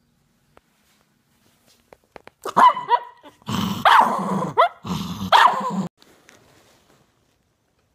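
A dog barking and growling in three loud outbursts lasting about three and a half seconds, after a couple of seconds of quiet.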